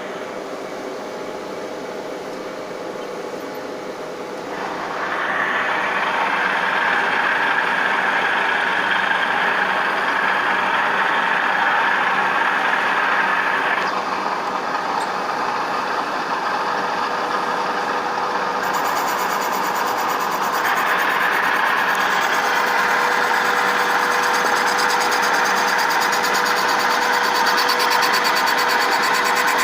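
3Б12 universal cylindrical grinding machine running with a steady hum, a louder hiss setting in about four seconds in as the grinding wheel works a part held between centres. The hiss eases around the middle and comes back strongly near the end.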